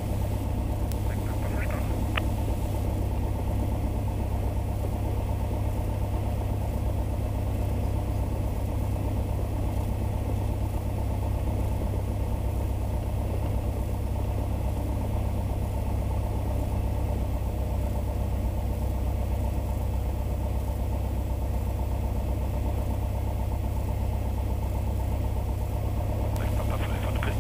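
Tecnam P2010 light aircraft's piston engine running at low taxi power, a steady, even drone heard inside the cockpit.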